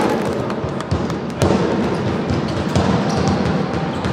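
A basketball bouncing as it is dribbled on an indoor court, amid the knocks and din of a live game, with music playing in the hall.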